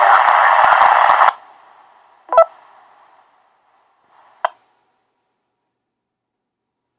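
VO1GT analog FM repeater heard through a handheld transceiver's speaker: a loud, harsh, crackling noise with no speech cuts off suddenly about a second in. A short beep comes about two seconds in, and another short blip about four and a half seconds in, after which the receiver goes silent.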